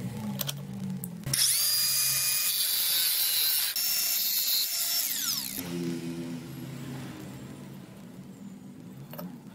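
Angle grinder with a cutting disc spinning up about a second in and running loudly for about four seconds, cutting through the pipe beside an old brass ball valve. It then winds down with a falling whine.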